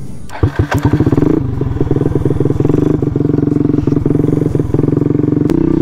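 Suzuki Burgman 400 single-cylinder four-stroke engine starting, on a homemade pickup-coil and CDI ignition: a few separate firing strokes quicken over about a second, then it runs steadily with a fast even beat.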